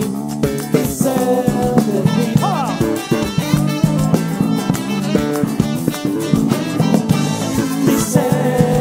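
Live band playing a song on drum kit, electric bass and electric guitars, with a steady beat.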